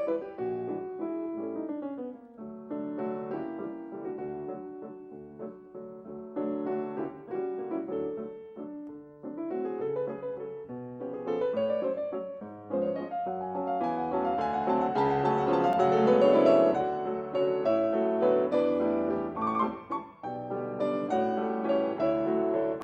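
Piano music: flowing runs of notes that swell to a fuller, louder passage about two-thirds of the way through, then settle.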